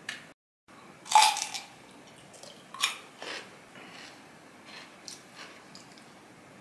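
Crunchy bites and chewing of raw cucumber close to the microphone: a loud crisp crunch about a second in, another near three seconds, then softer chewing.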